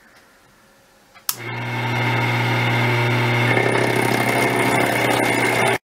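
A switch clicks and the Emco Compact 5's milling head motor starts, then runs steadily with a low hum and a higher whine, the sound shifting a little about halfway through. It cuts off suddenly at the end.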